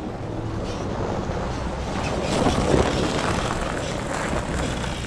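Leaf spring pack of a 2006 Toyota Tacoma creaking as the truck crawls slowly over a snowy trail, loudest about halfway through, over a steady rumble of engine and tyres.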